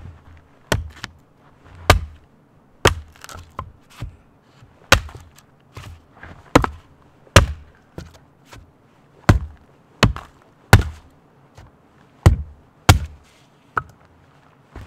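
A hatchet chopping into a wooden pole: a steady run of sharp chops, roughly one a second, with a few lighter taps between the heavy blows.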